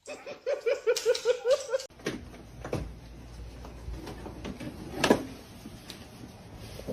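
A person laughing in a quick run of about eight short ha's, followed by a few scattered knocks.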